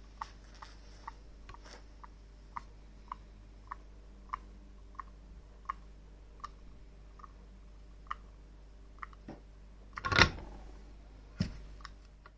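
Small clicks from espresso-making gear, evenly spaced at roughly two a second and cut into a rhythm, then a loud knock about ten seconds in and a smaller one about a second later.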